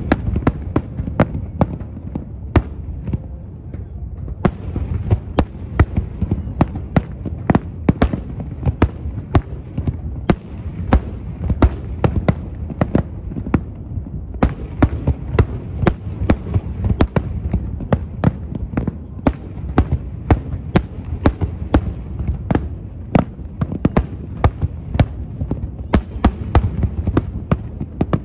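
Aerial fireworks display: shells bursting in quick succession, a continuous run of sharp bangs and pops several a second over a low rumble.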